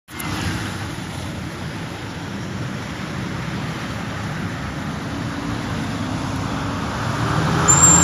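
City street traffic: a steady rumble of passing cars and other road vehicles, growing louder near the end.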